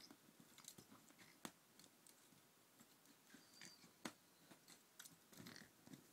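Faint clicks and soft rustling from a cat playing with a pencil in bedding, with two sharper clicks, about a second and a half in and about four seconds in.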